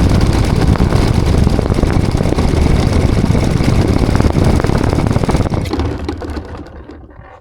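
The 40 cc engine of a model L-19 Bird Dog plane running steadily, heard through a camera mounted on the plane. About five and a half seconds in it fades away over the last two seconds as the engine winds down.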